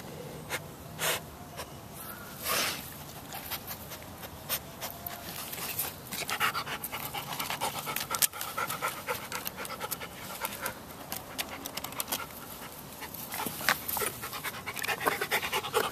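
Dog panting and sniffing hard with its nose down among the rocks of a stone wall, close to the microphone, as it tracks a small animal hidden inside, which the owner takes for a toad. A few separate loud sniffs give way to fast, continuous panting about six seconds in.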